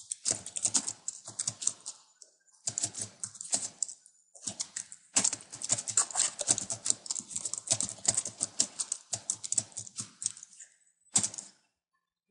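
Computer keyboard typing in quick bursts of clicking keystrokes, several keys a second, broken by short pauses; a last sharp keystroke about eleven seconds in, then it stops.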